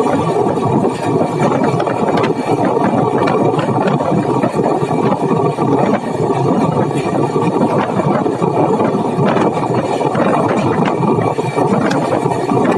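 Udyan Express passenger train running: a steady loud rumble and rattle of the coach and wheels on the track, with scattered short clicks.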